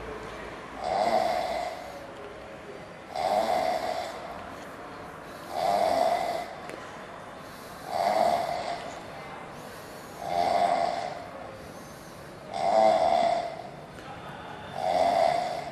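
A drunk man passed out asleep, snoring loudly: seven rasping snores, one about every two and a half seconds.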